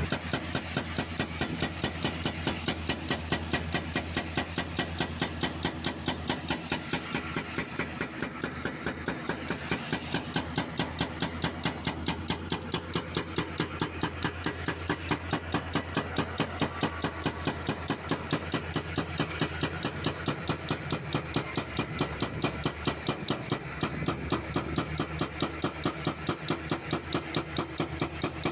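Hydraulic breaker on a CAT 320C excavator hammering concrete in a steady rapid rhythm of about four blows a second, over the excavator's diesel engine running under load.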